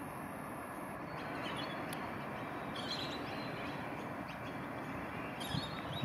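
Steady outdoor background noise with a few faint bird chirps, about a second in, around three seconds and again near the end.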